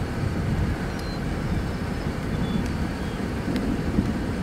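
Wind buffeting the microphone outdoors: a steady, gusty low rumble with no engine tone in it.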